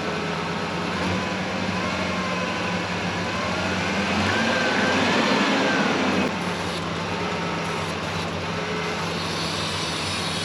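1996 Ford Ranger's 3.0 L V6 engine running at idle with its ruptured vacuum hose plugged off, running smoothly. The engine note rises briefly about four seconds in and drops back just after six seconds.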